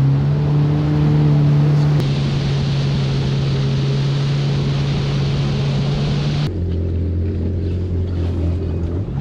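Yamaha FX Cruiser WaveRunner's four-stroke engine running steadily under way, with a rush of water and wind. About two-thirds of the way through, the engine note drops lower and the water hiss falls away as the craft slows to a crawl in shallow water.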